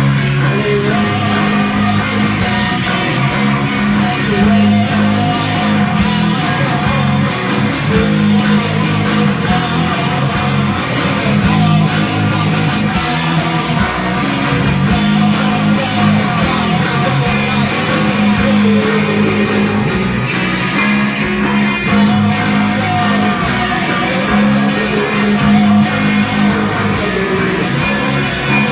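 Live psych-rock band playing at full volume: electric guitar, bass guitar and drums, with a strong, steady bass line.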